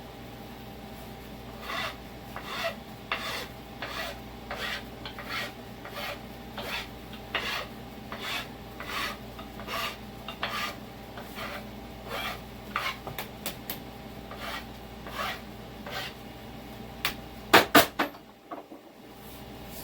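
Hand file rasping across the steel of an axe head in a steady run of strokes, between one and two a second. A few sharp metallic knocks come near the end.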